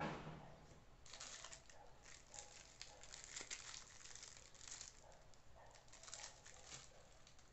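A light knock on the tabletop right at the start, then faint, repeated crinkling rustles of plastic curling ribbon being pulled from its spool and handled.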